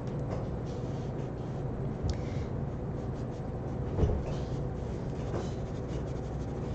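Pencil scratching on drawing paper in repeated shading strokes, over a steady low hum, with a soft knock about four seconds in.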